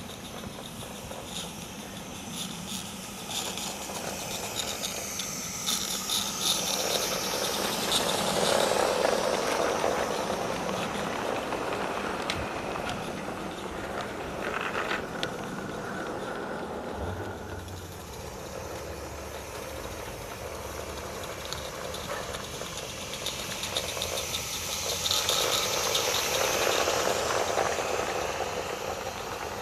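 A garden-scale live-steam Roundhouse Fowler locomotive and its freight wagons rolling past close by, with a steady mechanical running noise and the wheels clicking on the track. It swells twice as the train comes near. The locomotive has no chuffer fitted, so there is no distinct exhaust beat.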